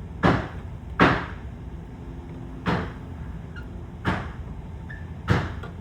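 Five sharp knocks, unevenly spaced, from a hand-turned chainsaw chain rivet-spinning tool as it is cranked tight to mushroom the rivet heads, over a steady low hum.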